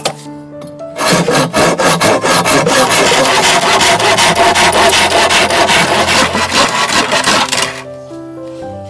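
Hand saw cutting through a thick bamboo pole in quick back-and-forth strokes, starting about a second in and stopping near the end, with background music underneath.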